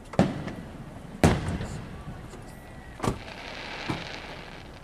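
Aerial firework shells bursting: four bangs, the second the loudest and the last the smallest, each trailing off in an echo. A hiss follows the third bang.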